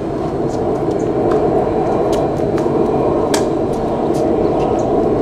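A steady low drone throughout, with sharp knocks scattered over it from the tennis ball being struck by rackets and bouncing on the hard court, the loudest about two and three and a half seconds in.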